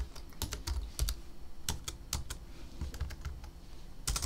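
Typing on a computer keyboard: a run of irregularly spaced key clicks as a measurement is entered.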